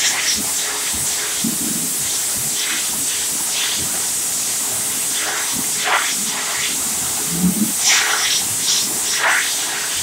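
Excel Xlerator high-speed hand dryer running: a steady, loud rush of air with a low motor hum beneath it. The airflow changes briefly every second or so as the hands move through it.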